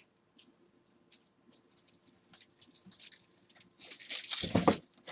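Light scratching, sliding and clicking of trading cards and stiff plastic top loaders being handled, with a louder rustle and knock about four seconds in.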